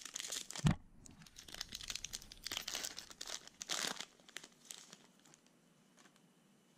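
Foil wrapper of a 2020 Panini Prizm baseball pack crinkling and tearing as it is pulled open by hand, with a dull thump about a second in. The rustling dies away after about five seconds.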